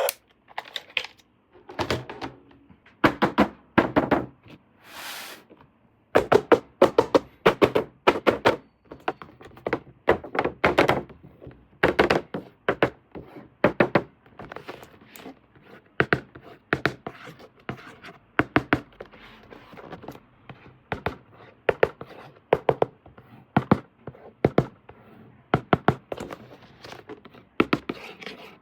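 Plastic toy parts and packaging being handled and unpacked: an irregular run of clicks, knocks and taps, with a short scrape about five seconds in.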